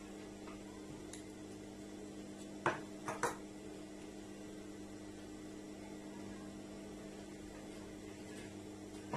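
Steady electrical hum of a Juki industrial sewing machine's motor running while the machine stands idle, not stitching. Three short sharp clicks come close together around three seconds in.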